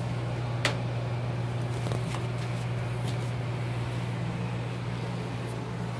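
Steady low hum, with a single sharp click just under a second in.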